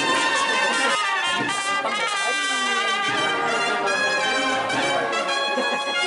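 Procession band playing a Holy Week march, with brass holding long notes that change pitch every second or so.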